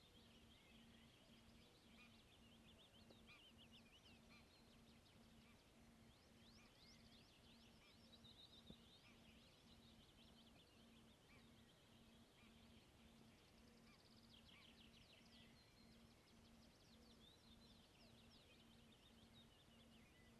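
Faint birdsong from several small birds, quick chirps and short trills overlapping, with a denser trill about two thirds of the way through.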